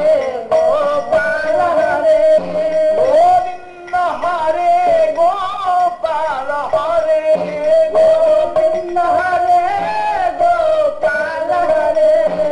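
Devotional kirtan: a man singing a wavering, drawn-out melody over a held tone, with a low drum stroke about every two and a half seconds.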